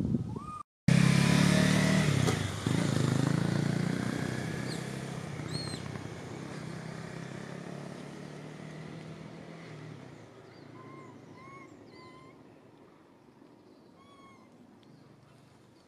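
A motor vehicle engine, loud and low, comes in suddenly about a second in and fades away slowly as it passes and recedes. A few short chirps sound over it, several in the last few seconds.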